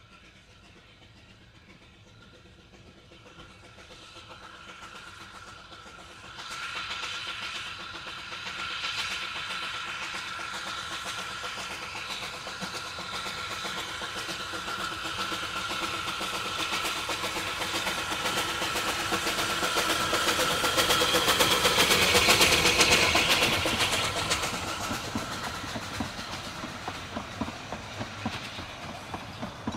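Narrow-gauge steam locomotive hauling four coaches approaches and passes close by, growing steadily louder to a peak about two-thirds of the way in. The coaches' wheels then click over the rail joints as they roll past.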